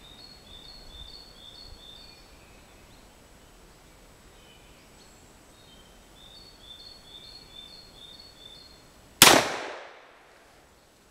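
A single shot from a Smith & Wesson Model 1917 revolver chambered in .45 ACP, near the end: a sharp crack that dies away over about a second. Before it, a small bird sings a run of quick repeated two-note chirps, twice.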